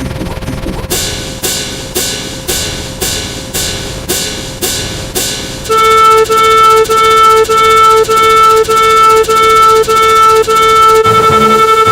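Layered sound effects: sharp ringing percussive hits about twice a second, then about halfway in a loud pulsing electronic tone beeping about twice a second takes over and becomes the loudest sound. Near the end a faster low pulsing layer joins in.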